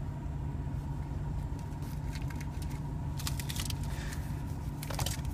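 Trading cards and a foil card pack being handled, with short crinkles and clicks about two to three seconds in and again near the end, over a steady low rumble inside a car.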